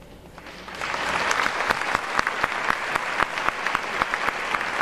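Audience applauding: the clapping starts faintly and swells within the first second, then goes on as dense, steady clapping.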